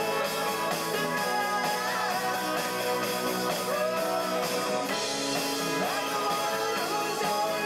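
Live rock band playing, with a lead vocal over the band.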